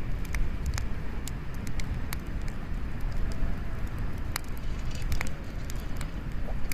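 Wood bonfire crackling, with irregular sharp pops and snaps over a steady low rumble.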